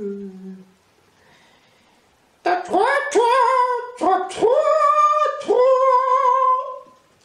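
A high-pitched puppet character voice sings or calls a run of about six held notes, each sliding up into its pitch, after a short lull; a lower voice trails off in the first second.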